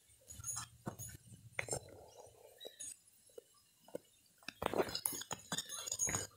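Scattered light clicks, knocks and rustling of objects being handled close to the phone's microphone, with a denser run of clicks in the last couple of seconds.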